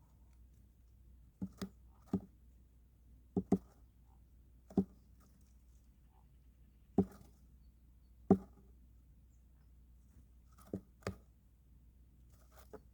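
Sharp knocks, about ten of them at uneven spacing, several in quick pairs, over a near-silent background.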